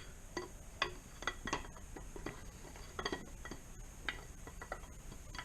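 Rover V8 steel camshaft being slid out of the engine block, its lobes giving irregular light metallic clinks and knocks against the block.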